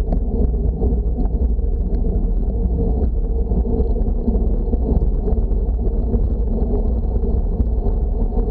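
Wind buffeting an action camera's microphone on a bicycle descending at 30 to 50 km/h: a loud, steady low rumble.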